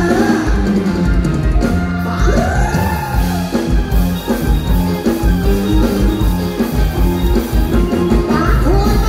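A live band playing through a stage PA: drum kit and bass on a steady beat, with a woman singing into a handheld microphone.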